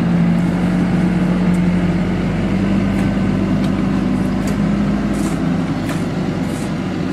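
Engines of a vibratory plate compactor and a tractor running steadily while sand is compacted, a strong steady hum whose pitch shifts slightly about two and a half seconds in, with a few faint ticks.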